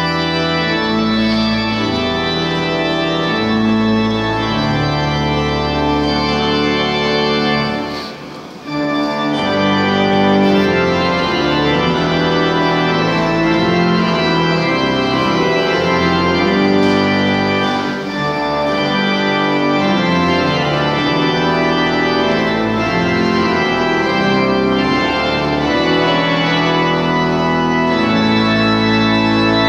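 Organ music: held chords changing every second or two, with a brief dip in level about eight seconds in.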